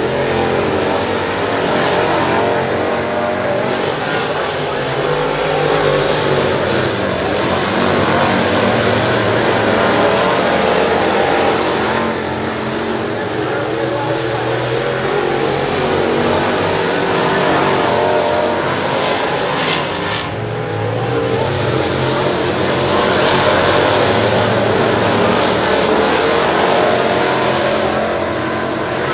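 Several dirt late model race cars running laps together, their V8 engines continuous and loud, swelling and easing every few seconds as the pack passes and goes down the track.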